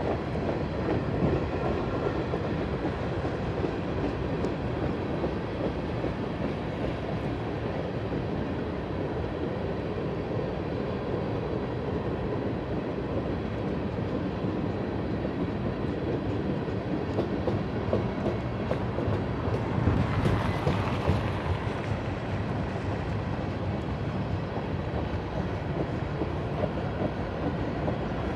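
BNSF freight train cars rolling past on the rails: a steady rumble of steel wheels on track with some clickety-clack, swelling briefly about twenty seconds in.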